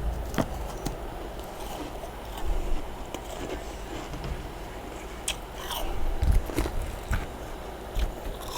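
Freezer frost being bitten and chewed, with irregular crisp crunches and crackles.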